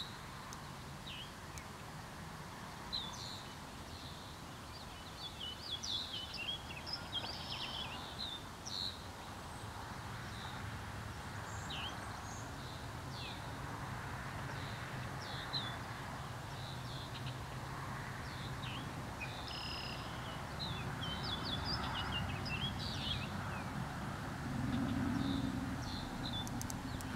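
Songbirds chirping and singing in short, scattered calls, over a steady low rumble.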